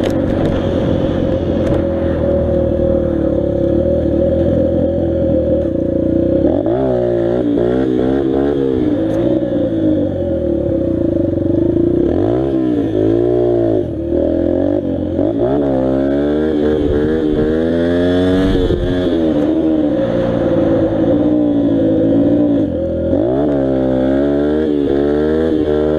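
Dirt bike engine running steadily, then revving up and dropping back again and again from about six seconds in, its pitch rising and falling as the throttle is opened and closed.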